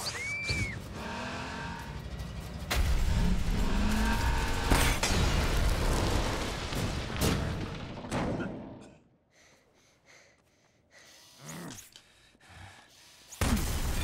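Film action sound effects: a pickup truck's engine running hard, with several sharp crashing impacts, over music. The sound falls away almost to nothing about two-thirds of the way through, and a loud crash hits just before the end.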